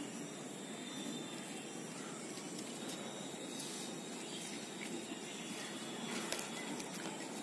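Quiet outdoor background ambience: a steady low hiss with a few faint clicks scattered through it.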